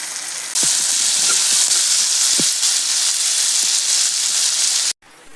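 Food frying in hot oil in a pan, a steady loud sizzle that jumps louder about half a second in and cuts off suddenly near the end.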